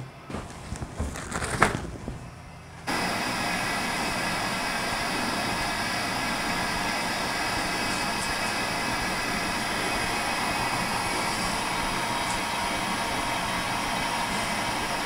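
Fresh mugwort leaves rustling as they are handled by hand for about three seconds. Then a steady rushing, bubbling sound of water at a rolling boil in a wide pot as the mugwort is blanched in a wire strainer.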